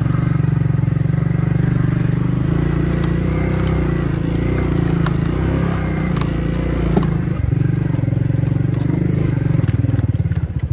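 1993 Suzuki King Quad 300's single-cylinder four-stroke engine running steadily under throttle on a trail ride, now running a lot better after its carburetor work. Scattered knocks and rattles come through, and the engine note dips briefly about seven seconds in.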